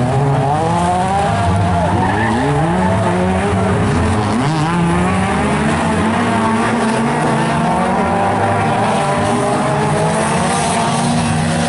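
Engines of a pack of small Fol'Car racing cars running together on a rallycross circuit, several pitches rising and falling at once as the cars accelerate and change gear through the bends.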